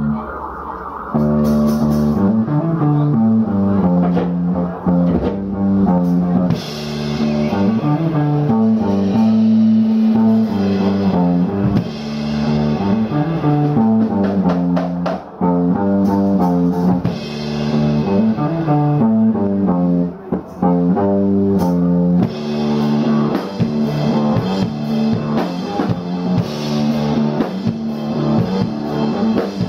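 Live rock music from a guitar and drum kit: a repeating guitar riff over steady drumming.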